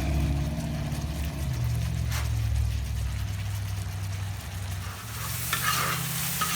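Chicken masala frying in oil on a tawa, sizzling as it is stirred, with spatula scrapes; the sizzle grows louder about five seconds in. This is the finishing stage, when the oil separates from the masala. A low steady hum sounds throughout.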